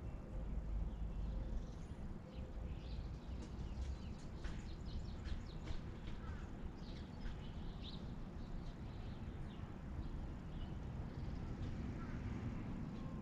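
Outdoor ambience: birds chirping and calling in short, scattered notes over a low steady rumble.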